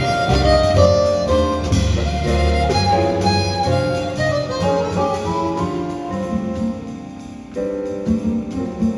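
Live jazz quartet playing a jazz waltz: chromatic harmonica carries the melody over grand piano, plucked double bass and drum kit. The music quietens briefly about seven seconds in, then a new phrase comes in.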